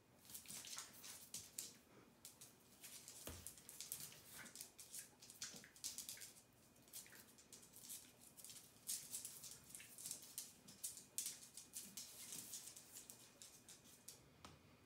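Faint, quick, irregular clicking and pattering of two small dogs' claws and paws on a hard floor as they play-wrestle, with one soft thump about three seconds in.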